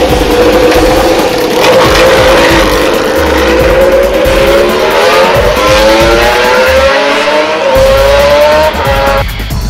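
Ducati Desmosedici GP7 MotoGP bike's 800 cc V4 engine, loud, revving and pulling away, its note climbing in pitch over several seconds before cutting off abruptly near the end.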